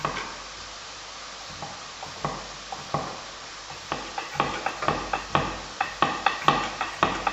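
Chef's knife chopping garlic on an end-grain wooden chopping board: sharp, irregular knocks of the blade on the wood, a few at first and coming quicker, several a second, from about four seconds in.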